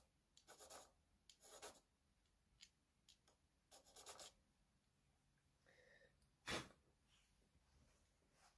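Faint, scratchy strokes of a small file trimming the nose on the tip of a cello bow's head, a few short strokes in the first half. About six and a half seconds in there is one louder short noise.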